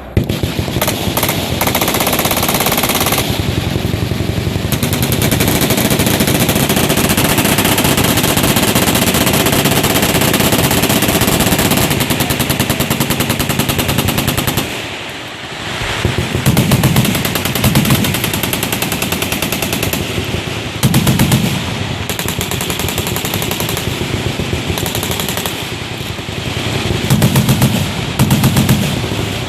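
Many machine guns firing at once: continuous, overlapping automatic fire that eases briefly about halfway through, then picks up again with heavier bursts.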